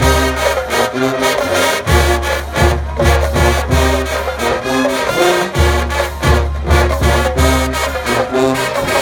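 Marching band playing: brass in full chords over loud low bass notes and regular drum hits.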